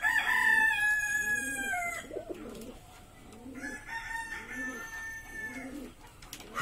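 A rooster crows loudly at the start, one long call that falls in pitch as it ends about two seconds in. A fainter, steadier crow follows from about three and a half seconds in. Under both, domestic pigeons coo in a steady run of low repeated phrases.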